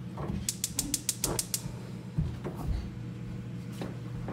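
A quick run of about nine sharp clicks over about a second, then a few scattered knocks, over a steady low hum.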